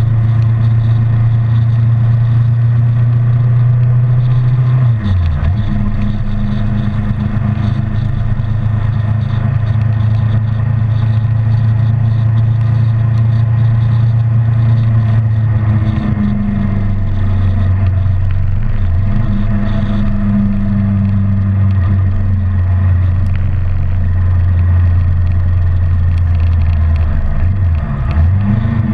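Kawasaki 650R's parallel-twin engine running at road speed, heard from the bike itself. The engine note breaks briefly and settles at a new pitch about five seconds in and again near the end, and drops slightly lower around the middle.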